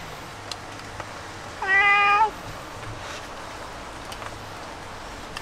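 A cat meowing once, about a second and a half in: a single drawn-out meow held at a nearly even pitch.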